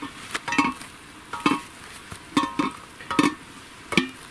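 A metal ladle knocking and scraping against a stew pot as food is scooped out and served, a string of short ringing clinks roughly every half second to second.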